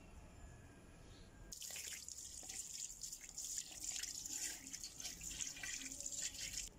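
Water from a garden hose splashing onto an alloy wheel and the paving around it as the wheel is rinsed off. The splashing starts suddenly about a second and a half in and cuts off just before the end.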